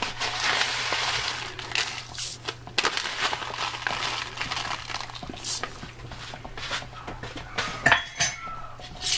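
Pickling spice poured into a pot of brine, a dense rattling rustle for the first few seconds, followed by scattered sharp clinks of a utensil against the pot, the loudest near the end.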